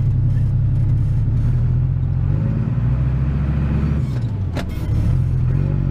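Tractor diesel engine running, heard from inside the cab, its pitch shifting a little as it is driven, with one sharp click about four and a half seconds in. The exhaust needs welding up, which the owner says makes it quite loud.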